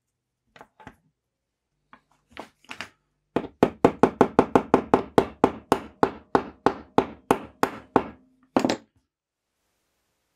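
Small hammer tapping on a rivet in a can opener's steel handle, working it over with a quick run of light, even blows, about four a second. A few quieter taps come first, and one last blow near the end.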